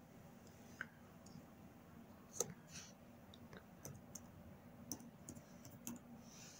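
Faint computer keyboard keys being pressed: about eight sharp, scattered clicks at uneven gaps, with near silence between.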